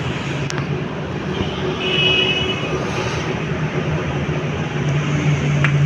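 A vehicle engine running steadily with a low hum. About two seconds in there is a brief high-pitched whine.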